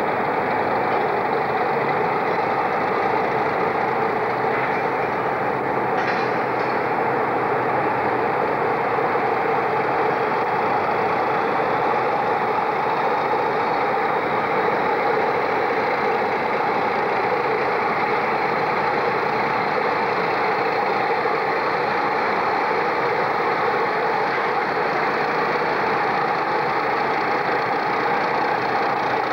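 Diesel locomotive engine running steadily under load as the locomotive moves slowly past, its power notched up enough to throw out thick black exhaust smoke. A brief click about six seconds in.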